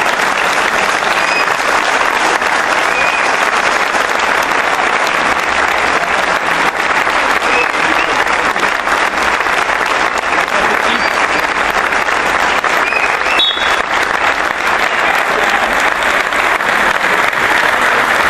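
Spectators in a football stadium stand clapping steadily and without letup: a minute's applause in tribute.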